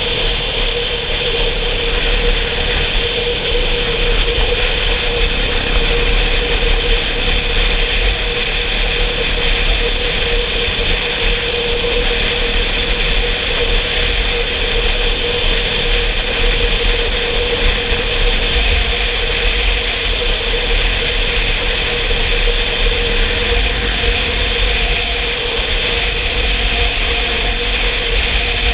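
Motorcycle cruising at steady motorway speed: a constant engine tone under heavy wind rush and low buffeting on the microphone.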